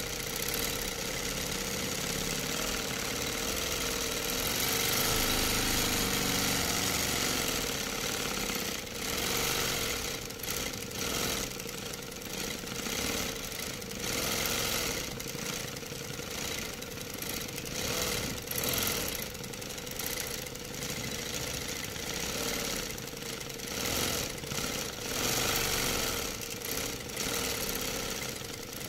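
Hummingbird longarm quilting machine stitching through a quilt, running with a steady mechanical hum that swells and eases repeatedly in the second half.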